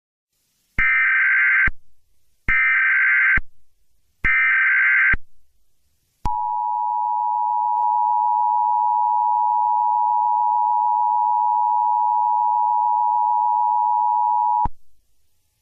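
Emergency Alert System signal: three bursts of the SAME digital header, each about a second long, then the steady two-tone EAS attention signal held for about eight seconds before it cuts off.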